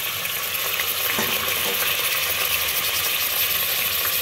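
Raw bone-in mutton pieces sizzling steadily in hot oil in an aluminium pressure cooker.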